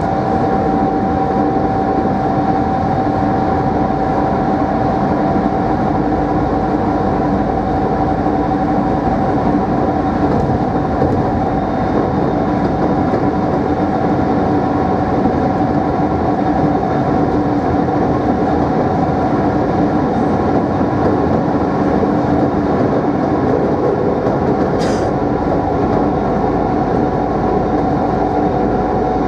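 Mat'64 (Plan V) electric multiple unit running at a steady speed: its traction motors give a steady hum with a high whine, over continuous wheel-and-rail noise. There is one brief sharp click near the end.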